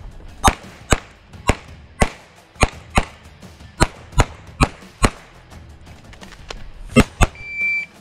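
Rapid pistol fire from a compensated CZ 75 TS Czechmate open-class pistol: about a dozen sharp shots, mostly in quick pairs. A pause of about two seconds comes before a last pair, then a short electronic beep near the end.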